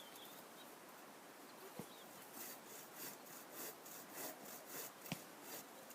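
Hand saw cutting through a small tree trunk: faint, short, uneven strokes starting about two seconds in, typical of a child sawing slowly, with a sharp knock near the end.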